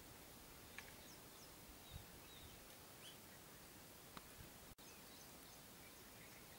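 Near silence: steady background hiss with faint, scattered short bird chirps and a few soft low thumps. The hiss drops out for an instant a little after the middle.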